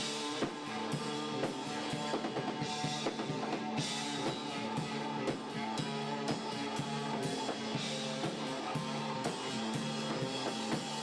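A band playing: a drum kit keeps a steady beat under bass and guitar.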